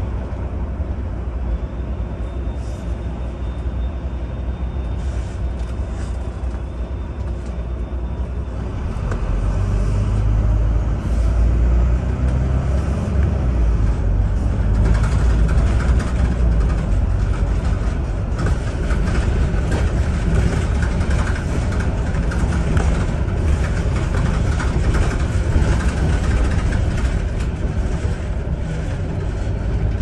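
Cabin noise of a London double-decker bus heard from the upper deck: a steady low engine and road rumble that grows louder about nine seconds in and stays up.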